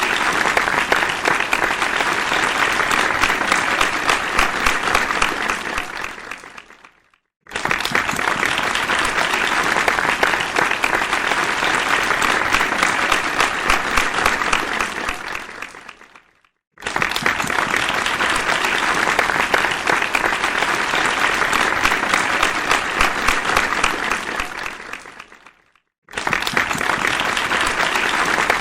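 Applause from many people clapping at once, in rounds of about nine seconds. Each round fades out into a brief silence before the next begins, three times.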